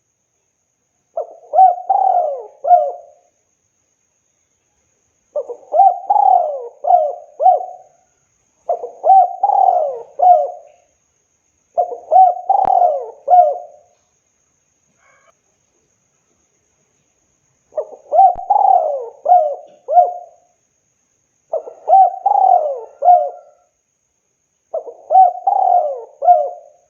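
Spotted dove (tekukur) cooing in repeated phrases of three to four coos each, seven phrases a second or two apart, with a pause of about four seconds midway.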